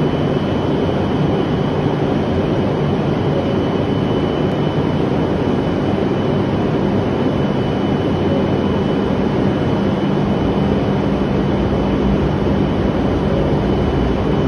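E7-series Shinkansen train standing at the platform with its doors open: a loud, steady hum and rush from its running onboard equipment, with a thin high whine throughout.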